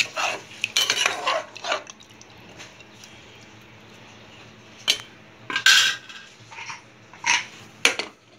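Metal spoon scraping and clinking against the inside of a pressure cooker as mutton in gravy is stirred, then a few sharp metal clanks as the cooker lid is handled, the loudest a little past the middle.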